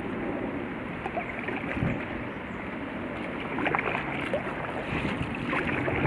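Kayak paddling on calm river water: splashes and drips as the paddle blades dip in and lift out, about every two seconds, over a steady wash of water.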